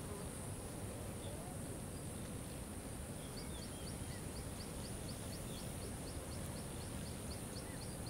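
Outdoor woodland ambience at dawn: a steady low rumble under a steady high hiss, with faint scattered chirps. About three seconds in, a fast, regular series of high chirping ticks starts, about four a second, and keeps going.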